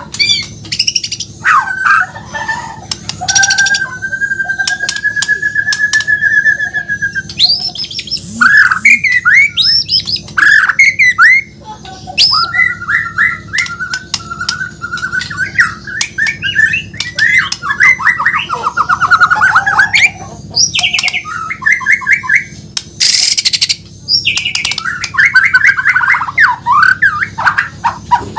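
White-rumped shama (murai batu, Bornean type) singing a long, varied song: quick whistled phrases and rapid trills, one steady trill held for a few seconds near the start, and a couple of harsh rasping notes. A steady low hum runs underneath.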